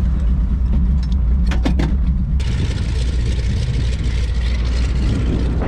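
Float plane's propeller engine running steadily on the water, a strong low hum. A few sharp clicks come at about one and a half seconds, and a brighter hiss joins the hum about two seconds in.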